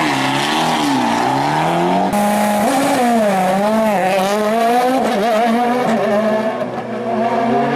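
Rally car engines at high revs, pitch rising and falling quickly with throttle and gear changes. There is an abrupt change about two seconds in as the sound switches from one car to another.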